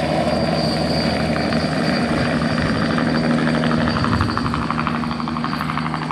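Small helicopter running, its turbine whine and rotor chop steady at first, then growing fainter over the last second or two.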